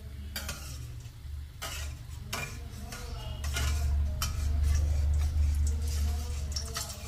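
Flat metal spatula scraping and clicking against the bottom of a brass kadhai, working loose a malpua that is sticking to the pan, with a steady low hum under it. The malpua is deep-frying in hot oil.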